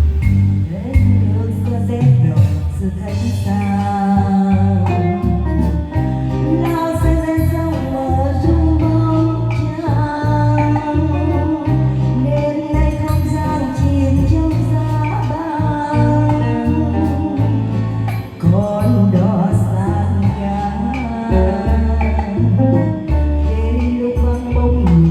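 Music: a song with a sung vocal melody over guitar and bass accompaniment.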